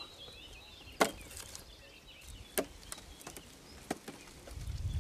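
Firewood branches knocking against each other as they are stacked onto a donkey's load, a sharp wooden knock about a second in, then scattered lighter knocks. Birds chirp faintly behind.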